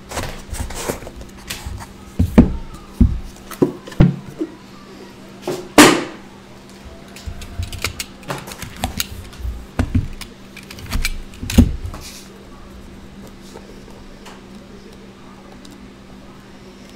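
Handling noises from a cardboard trading-card box being taken out, slit open with a utility knife and opened: scattered knocks, taps and scrapes, with a louder knock about six seconds in. The last few seconds are quieter, with only a steady low hum.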